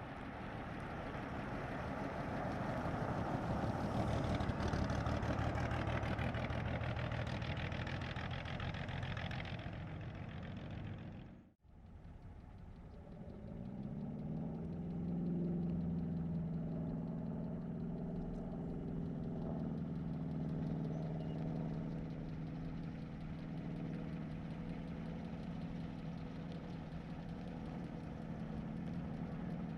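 A 1937 Plymouth's flathead six driving past at medium speed, loudest about four seconds in and then fading. After a sudden break just before halfway, the car comes by slowly, its engine running steadily at low revs.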